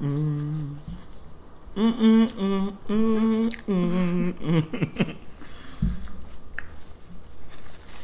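A person humming a tune with closed lips: several held notes that change pitch from note to note, ending in a few shorter wavering notes about five seconds in. After that come only scattered small clicks and faint rustling.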